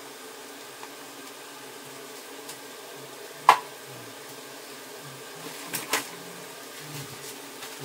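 Quiet kitchen room tone: a steady low hum, broken by one sharp knock about three and a half seconds in and two lighter clicks near six seconds.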